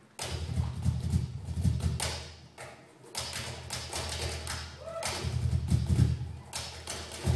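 Cajón played by hand in a solo: deep bass thumps mixed with sharp slaps in a quick, uneven rhythm, easing off briefly about three seconds in before picking up again.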